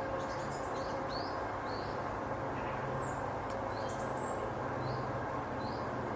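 Small woodland birds give repeated short chirps over the steady drone of distant agricultural machinery (a tractor) and a light breeze in the trees.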